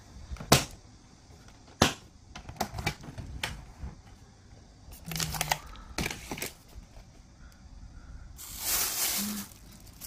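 Plastic cooler box being opened: two sharp clicks of its latches and lid, then smaller knocks and clatter of the contents, and plastic bags rustling near the end.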